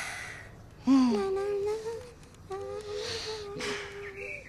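A high, childlike puppet voice humming a short wavering tune, beginning with a quick downward slide about a second in and then holding a few notes.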